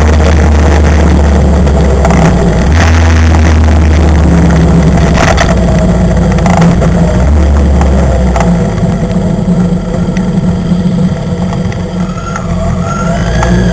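Motorcycle engine running at road speed, heard from the bike itself with heavy wind noise on the microphone. About two thirds of the way through the engine drops back as the bike slows, then near the end it revs up again with a rising whine.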